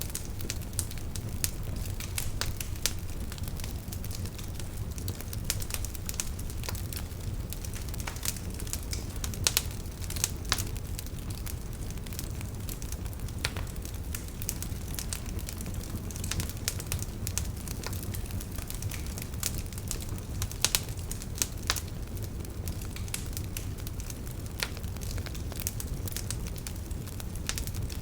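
Wood fire burning, with a steady low rumble and frequent irregular crackles and pops, a few sharper pops standing out.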